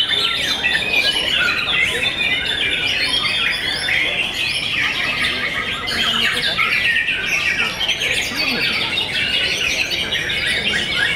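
Several caged white-rumped shamas singing at once: a dense, unbroken tangle of varied whistles and chirps.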